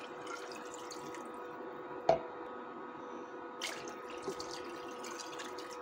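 Water poured from a clay cup into a pot of curry gravy, splashing and trickling into the liquid, with one sharp knock about two seconds in.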